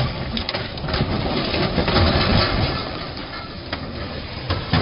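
A crane truck toppling off a quay into the water: a continuous crashing noise with several sharp cracks and knocks, a few of them bunched about half a second in and another near the end.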